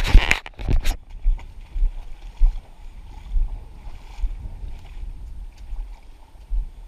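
Footsteps crunching over river cobbles and wading in shallow water, with a loud clatter in the first second and then softer irregular thumps.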